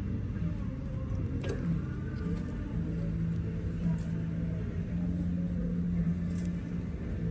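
Steady low hum and rumble of a shop's background machinery, with a few faint clicks.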